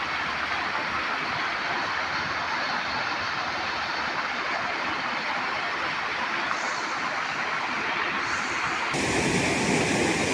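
Kopili river floodwater rushing over a road, a steady torrent of water noise. About nine seconds in the sound changes abruptly to a fuller, slightly louder rush of water.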